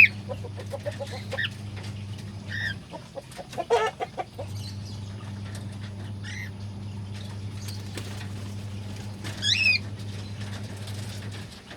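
Cockatiels giving short chirping and whistling calls, scattered through, several rising and falling in pitch, with the loudest pair about nine and a half seconds in. Under them a steady low hum drops out for a second or so about three seconds in and stops near the end.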